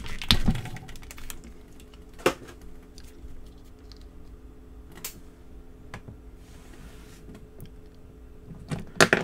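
Light plastic clicks and taps from handling a McFarlane DC Multiverse action figure while a swapped head is pushed onto its neck peg, with a few sharper clicks among them.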